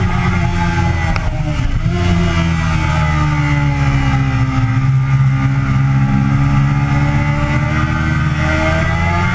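Yamaha sport bike's engine heard from on board at track speed. Its note falls as the bike slows for a corner, stays low and steady through the turn, then rises again as the throttle opens near the end.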